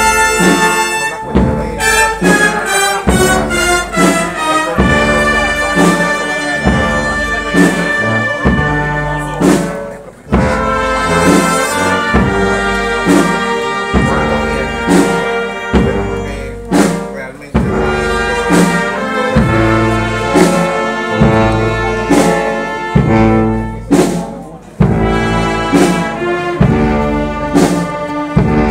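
A brass band of trumpets and trombones plays a slow processional march, with a drum or cymbal stroke about once a second. The music pauses briefly between phrases twice.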